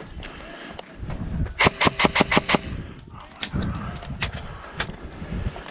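Airsoft gun firing a quick burst of about seven shots in a second, followed a second or two later by a few single shots.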